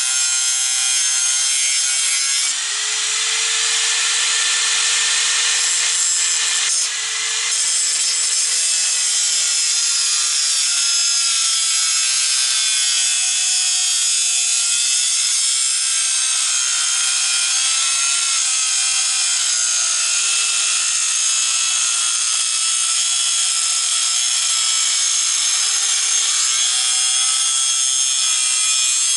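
Angle grinder cutting into a steel bracket held in a bench vise: a loud, steady motor whine with harsh grinding, its pitch dipping slightly now and then as the disc bites into the metal.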